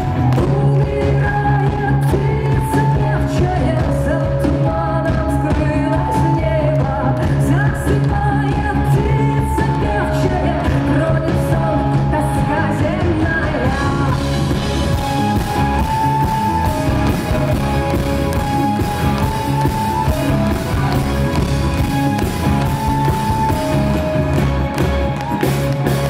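Live rock band performing a song, a woman singing over a steady bass, held instrument notes and a regular drum beat.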